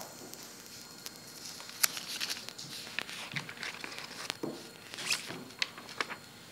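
Classroom room noise: scattered rustling and small clicks and knocks, with one sharper click about two seconds in.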